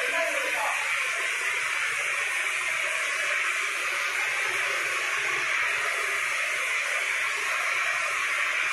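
Cement mortar spray gun hissing steadily as compressed air blasts wet mortar onto a brick wall.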